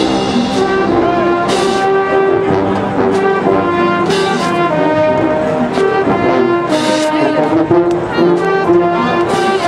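Full marching band playing: massed brass with sousaphones holding loud sustained chords over drums. A bright crash lands about every two and a half seconds.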